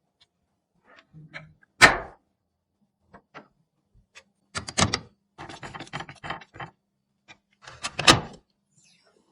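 Computer parts being handled and fitted by hand: scattered sharp clicks and knocks, the loudest about two seconds in and again near the end, with a quick run of small rattling clicks in the middle.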